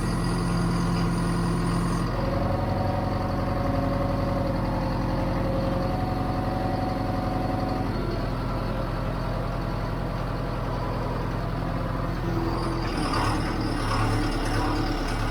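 John Deere 410 backhoe's diesel engine running steadily after its cold start, its pitch shifting slightly a couple of times, with a rougher, louder stretch in the last few seconds.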